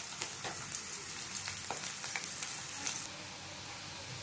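Chopped onion sizzling in hot oil in a karahi, a steady hiss with many small crackling pops as it starts to fry. About three seconds in the crackle drops off abruptly, leaving a softer, steady hiss.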